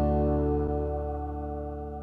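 Background music: a held chord ringing out and fading away.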